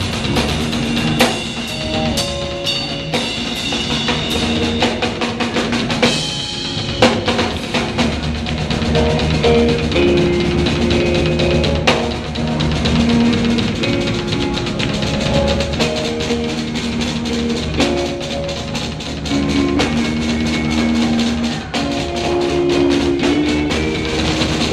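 Live drum solo on a Yamaha drum kit: fast snare and tom hits, rimshots and bass drum under cymbal wash, with electric bass and guitar notes held underneath and growing stronger from about a third of the way in.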